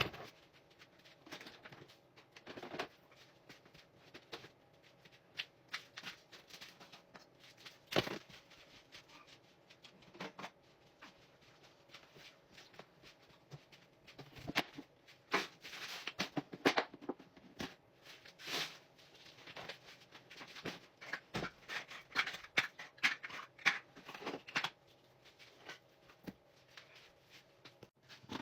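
Irregular rustling, light clicks and clatter of small things being handled and moved about, as in tidying a cluttered room. The sounds come sparsely at first and grow busier about halfway through.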